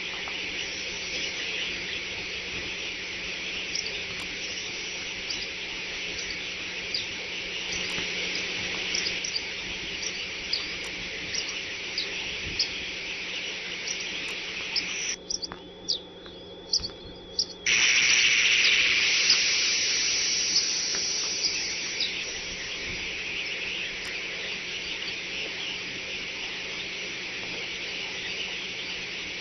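Steady, high-pitched chirring outdoor background with scattered short chirps, under a faint low electrical hum. About halfway through, the sound cuts out for a couple of seconds, then comes back louder and eases down again.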